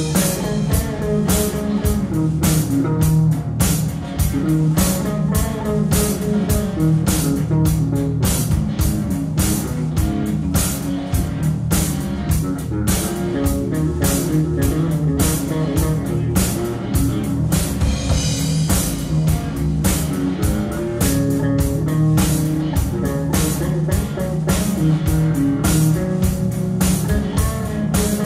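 Live rock band playing an instrumental passage: electric guitar over electric bass and a drum kit, with a steady beat.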